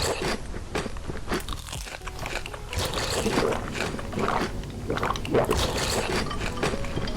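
Close-up mukbang eating sounds: loud, irregular crunchy bites and chewing of crisp food.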